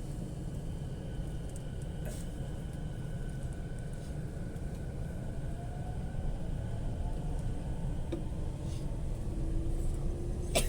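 Steady low background rumble, with a sharp click near the end.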